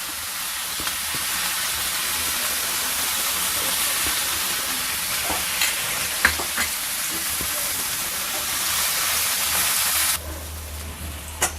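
Boiled broad beans frying in hot oil in a pan, a steady high sizzle with a few clicks of stirring. The sizzle cuts off abruptly about ten seconds in.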